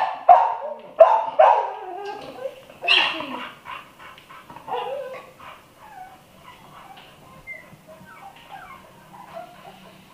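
American Bully puppies yelping and barking, with several loud sharp calls in the first three seconds, then softer short calls that fade away.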